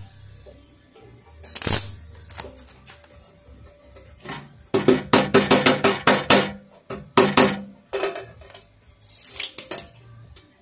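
Hammer tapping a thin steel patch panel welded into a Vespa scooter's body: a quick run of about ten ringing metallic strikes midway, then a few more spaced taps. Under two seconds in comes a short crackling burst, a MIG tack weld on the patch.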